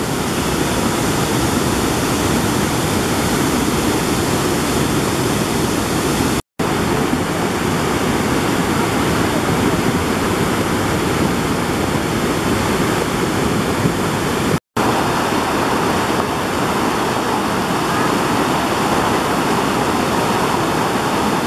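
Muddy floodwater of a swollen mountain river rushing over boulders and debris, a loud steady rush of water. It breaks off for an instant twice, about six and fifteen seconds in.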